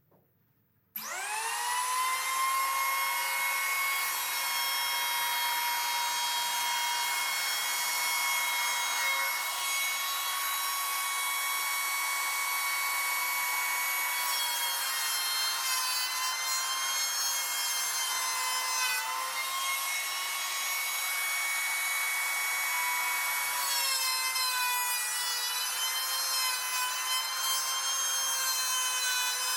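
Electric hand planer switched on about a second in, its motor spinning up quickly to a steady high whine. In the second half its pitch wavers as the cutter head is pushed along the wide board, shaving wood.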